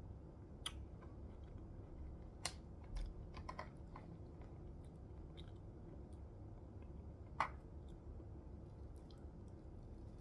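A metal spoon clicking and scraping as it scoops kiwi flesh out of the skin, with quiet chewing of the fruit. The clicks are scattered and light, the sharpest one about seven seconds in.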